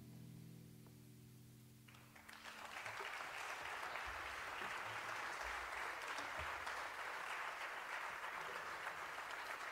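The band's final held chord fades out over the first two seconds. Then audience applause starts and carries on steadily.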